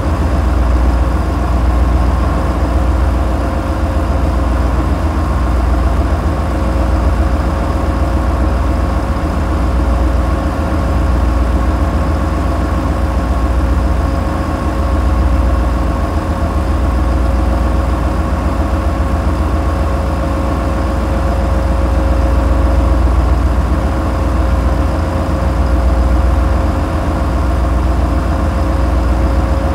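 Tugboat's 450-horsepower engines running at constant speed: a heavy low rumble that swells and eases slowly, with a steady hum above it.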